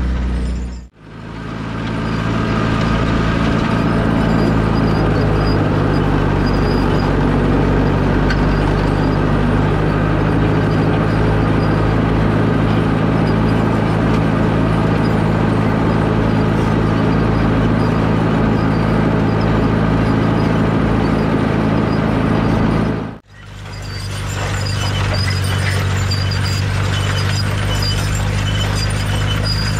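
Allis-Chalmers WD45 tractor engine running steadily under load while pulling a grain drill. The sound dips out briefly about a second in and again about two-thirds of the way through, then comes back.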